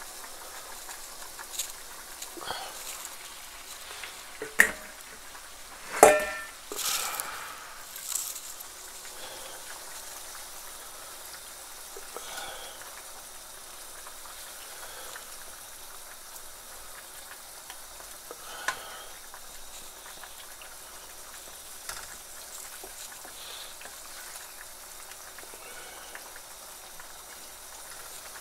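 Hilsa roe and taro curry sizzling steadily in a non-stick frying pan while it is stirred with a wooden spatula. A few short knocks and scrapes of the spatula against the pan, the loudest about six seconds in.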